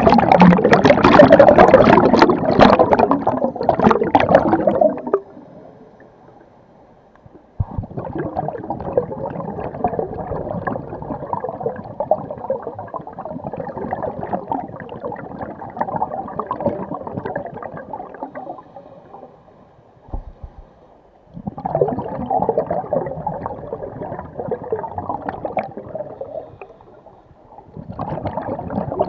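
Scuba diver's exhaled air bubbles gurgling from the regulator underwater. They come in long bursts, the first and loudest at the start, with quieter gaps of a couple of seconds between them.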